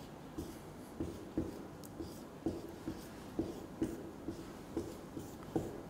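Marker pen drawing short strokes on a whiteboard, one brief scrape with each stroke, about two a second.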